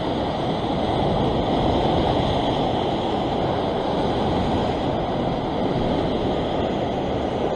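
Ocean surf churning and washing against a rock ledge: a steady rush of broken water with no single crash standing out.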